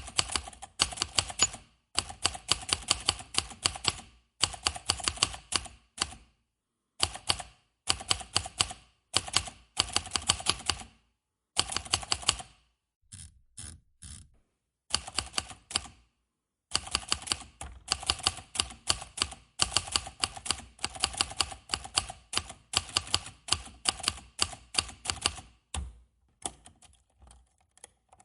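Manual typewriter being typed on: runs of rapid key strikes lasting a second or two, broken by short pauses, growing sparser and quieter near the end.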